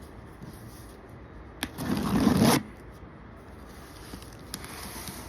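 Cardboard shipping box being torn open: a sharp click, then nearly a second of loud ripping and scraping, with fainter rustling near the end.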